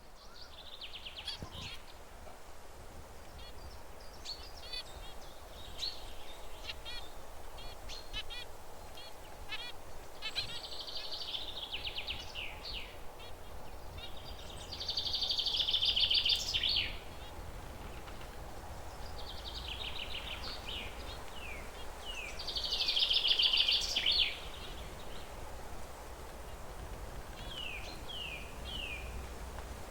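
Zebra finches chirping and singing: a run of short chirps and clicks, with two louder buzzy song bursts, one about halfway through and another about three quarters of the way in, and three quick falling chirps near the end. A steady low hum lies underneath.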